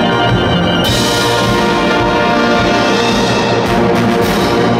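School wind band playing a Disney medley: full brass and saxophones sounding a sustained chord over drum kit and timpani. A cymbal crash comes about a second in, and more crashes come near the end.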